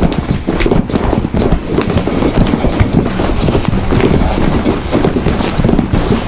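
Foley sound effect: a rapid, uneven stream of knocks and taps, with a hiss in the highs through the middle.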